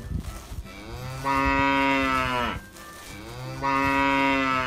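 Cow mooing: two long, steady moos, each about a second and a half, the second starting about halfway through and dropping in pitch as it ends.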